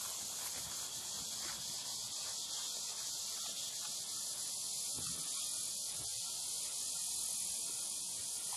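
Steady high-pitched buzz of insects, with a few faint thuds of a pony's hooves on grass about five and six seconds in.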